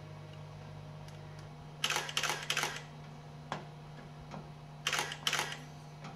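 Digital SLR camera shutter firing in quick runs: a cluster of about four shutter clicks some two seconds in, and a shorter run of two or three about five seconds in.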